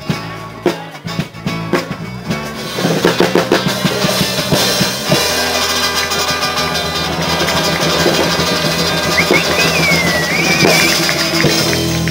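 Live music with an acoustic guitar and drum strokes; the playing grows fuller and louder about three seconds in.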